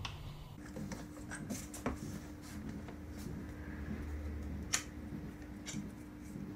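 Light clicks, taps and rustles of plastic oil bottles being opened and handled on a workbench, with one sharper click a little under five seconds in.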